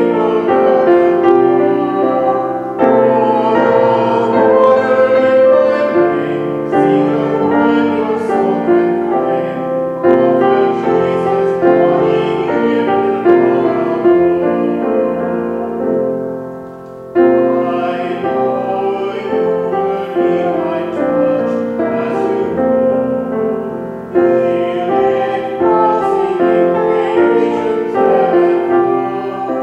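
Piano music in long phrases, with a brief fall in loudness about halfway through before the next phrase.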